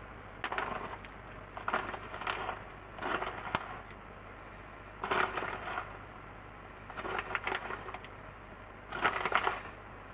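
Plastic bag of shredded melting cheese crinkling in about six short bursts as handfuls of cheese are pulled out and scattered over a gratin.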